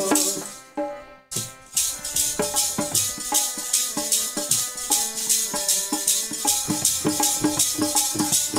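Devotional kirtan music between sung verses: short melodic instrumental notes over an even beat of drum and jingling, shaker-like percussion. The music drops away almost to nothing about a second in, then picks up again with the steady rhythm.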